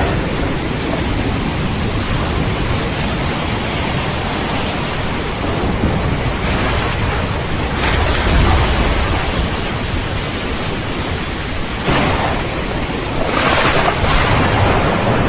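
Thunderstorm: steady heavy rain with low rolling thunder, swelling louder about eight seconds in and again near the end.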